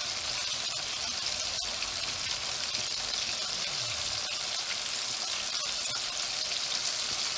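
Coated chicken strips deep-frying in hot oil: a steady sizzling hiss of bubbling oil with small scattered crackles.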